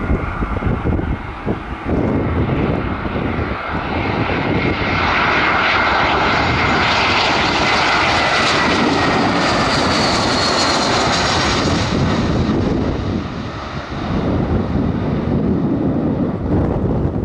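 Passenger airliner's engines passing by, swelling from about four seconds in, loudest in the middle and fading again, with a high whine that drops slightly in pitch as it goes. Gusty wind buffets the microphone throughout.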